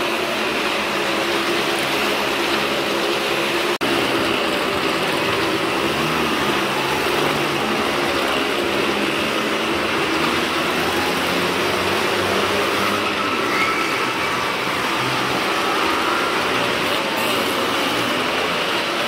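Motorcycle and car engines running continuously as they circle the vertical wooden wall of a well-of-death stunt drum, a loud, steady din.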